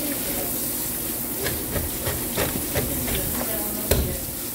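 Steady hiss of running water, with a string of knocks and taps from a fish and a knife being handled on a plastic cutting board. The sharpest knock comes near the end, as the knife goes into the fish.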